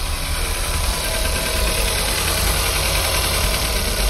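Volkswagen Caddy petrol engine idling steadily after a restart. It has a misfire logged on the second cylinder, but it is running better, in the mechanic's words.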